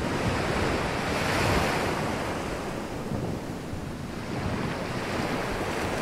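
Sea surf breaking and washing up the beach, with wind buffeting the microphone; the surf swells to its loudest about a second and a half in, then eases off.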